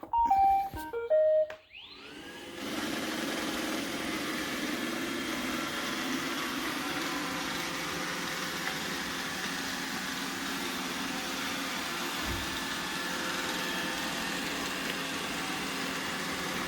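iRobot Roomba 960 robot vacuum plays a short tune of several beeping notes as it starts a clean. Its motor then spins up with a rising whine and runs steadily as it vacuums.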